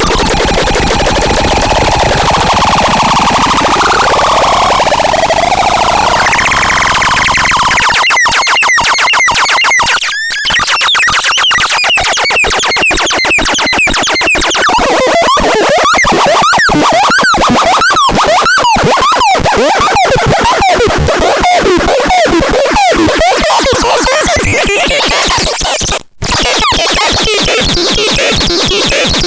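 Harsh electronic noise from a synthesizer: a dense noisy wash with pitch sweeping up and down, then from about eight seconds in a fast stutter of chopped, chirping pulses whose pitch glides. It cuts out briefly a little before the end.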